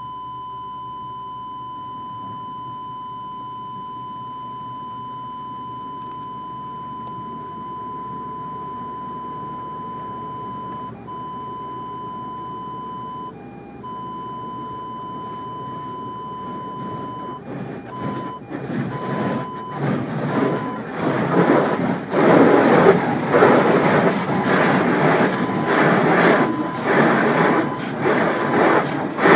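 Audi parking-sensor warning sounding as one continuous beep, the tone it gives for an obstacle very close, with short breaks, then changing to separate beeps about 17 s in and stopping soon after. From about 18 s the car wash's brushes and water spray beat against the car body as a loud rhythmic swishing, heard from inside the cabin.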